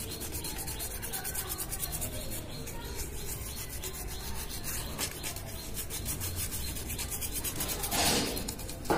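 Cotton-tipped swab scrubbing a circuit board wet with cleaning fluid, a steady rapid rubbing as carbon deposits are worked off the board. There is a louder burst about eight seconds in.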